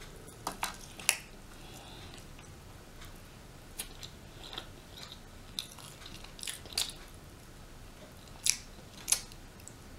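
Close-up eating of rotisserie chicken: quiet chewing punctuated by about ten short, sharp, wet mouth smacks and clicks spread unevenly through the stretch.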